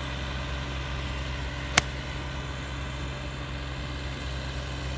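A golf iron strikes the ball once, a sharp click a little under two seconds in. Under it runs the steady hum of a ride-on grass mower.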